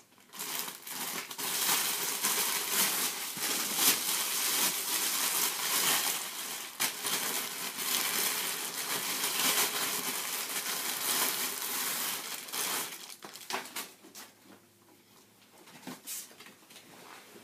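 Clear plastic wrapping crinkling and rustling as it is pulled off a coiled hookah hose; the crackling is continuous and dies down about thirteen seconds in, leaving a couple of brief rustles.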